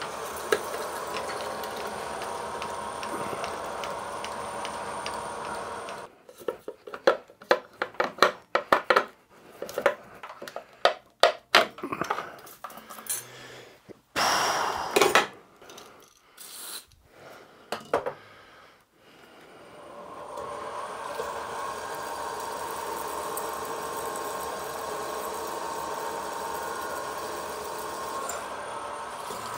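Drilling machine spindle running as a Helicoil drill bores into an aluminium motorcycle crankcase. About six seconds in the running stops and a string of irregular sharp metal clinks and knocks follows. The machine runs up again about twenty seconds in and keeps drilling steadily.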